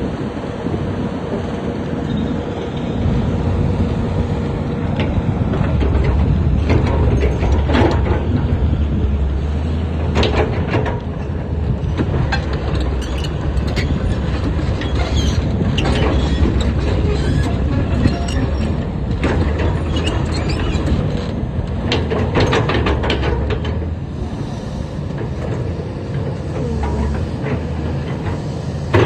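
SANY SY215 hydraulic excavator working: its diesel engine runs steadily and builds under load through the middle, with sharp metallic clanks at intervals.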